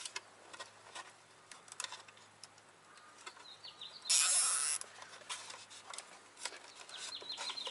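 Small clicks and handling noises as a zip tie is fitted around a boost hose at its gauge fitting, with one short loud rasp about four seconds in. Runs of short high chirps come from the background.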